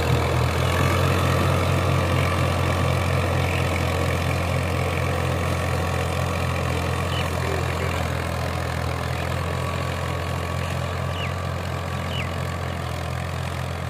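Farm tractor's diesel engine running steadily with an even, low throb, fading slightly toward the end.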